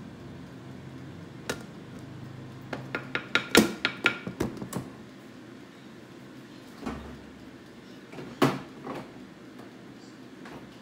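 A utensil clinking and tapping against a ceramic plate in a quick run of sharp clicks, as ssamjang paste is scraped off onto it; a couple of duller knocks follow later.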